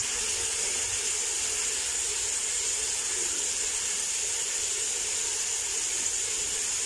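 Steady sizzling of chopped vegetables and egg stir-frying in hot oil in a pan, an even high hiss.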